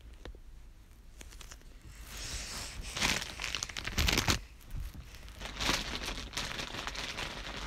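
Plastic squishy packaging being handled, crinkling and rustling, with the loudest crinkles about three and four seconds in.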